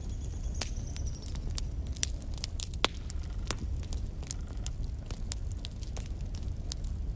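Wood fire burning in a fireplace: logs crackling with irregular sharp pops over a steady low rumble, the loudest pops near the middle.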